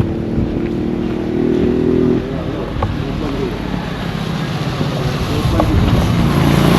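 Road traffic: a motor vehicle engine hums steadily for about two seconds. Near the end another vehicle draws closer and grows louder.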